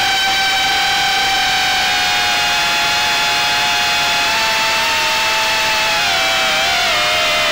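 Brushless motors and 3-inch Gemfan Flash props of a small FPV quadcopter, heard through its onboard RunCam camera, whining steadily in cruise, several close pitches from motors spinning at slightly different speeds. The pitch dips and wavers near the end as the throttle is eased.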